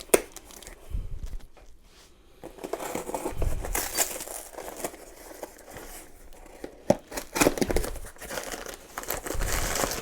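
Cardboard box and its packing being opened by hand: irregular crinkling, tearing and rustling, with scattered sharp clicks and knocks.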